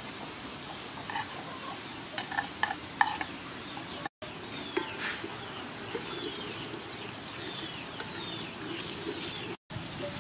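Pot of water boiling on a clay stove, a steady bubbling hiss, while a metal spoon knocks and scrapes pounded herb paste from a wooden board into it a few times about two to three seconds in, then a wooden ladle stirs the pot. Birds chirp faintly in the second half.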